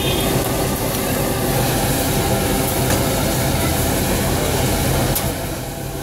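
Food sizzling on a flat-top griddle over a loud, steady mechanical hum, with no speech.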